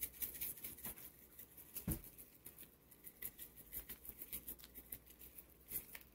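Kickin Chicken seasoning shaken from its shaker onto raw chicken strips in a foam tray: a faint run of quick rattling ticks, with a soft knock about two seconds in.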